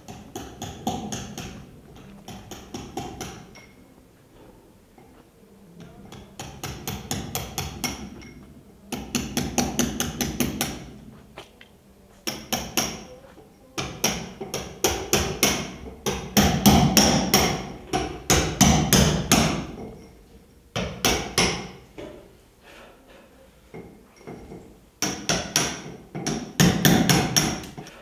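Hammer blows in quick runs, about five strikes a second, each run lasting a second or two with short pauses between. Each strike rings briefly.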